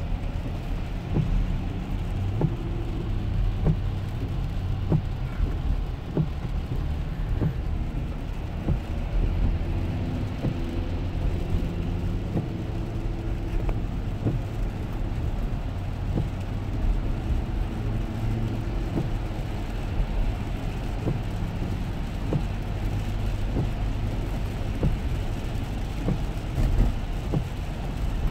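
Cabin noise of a 2007 Lexus LX 470 driving on a wet highway: a steady low rumble of its new Michelin Defender tires on wet pavement and its V8 engine, with scattered light ticks.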